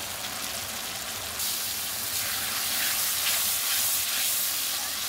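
Spiced onion-tomato masala sizzling in a kadhai while a metal spatula stirs it. The hissing sizzle grows louder about a second and a half in.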